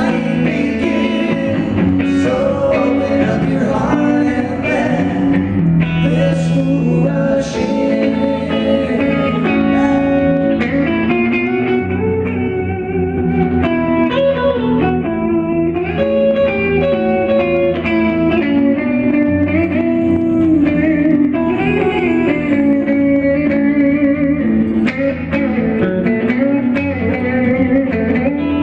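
Live pop-rock band playing, with a man singing lead over electric guitar and electric bass.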